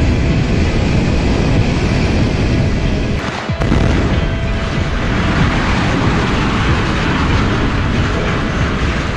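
Deep rumble of concrete cooling towers collapsing in an explosive demolition. About three and a half seconds in it breaks off briefly, and a second demolition follows: charges fire and a steel plant structure crashes down, with a harsher, more crackling rumble.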